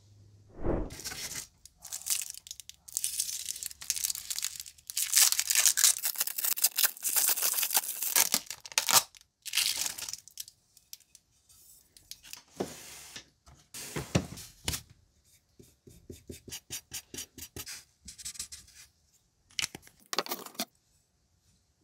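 Blue plastic wrapping crinkling and tearing as it is stripped off a knife blade, in irregular bursts that are thickest a few seconds in. Later come scattered knocks from handling the knife and a quick run of small ticks.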